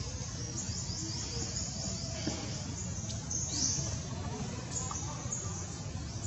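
Birds chirping: many short, high falling chirps in quick succession over a steady low rumble.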